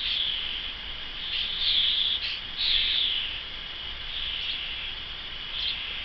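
Fledgling starlings begging: a series of about five harsh, buzzy calls, each lasting under a second.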